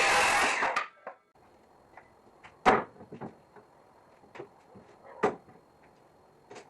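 Guitar background music cuts off about a second in. Then come scattered knocks and clunks of wooden boards being handled, the two loudest about two and a half seconds apart.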